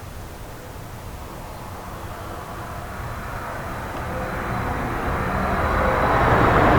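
A passing vehicle's noise, growing steadily louder as it approaches.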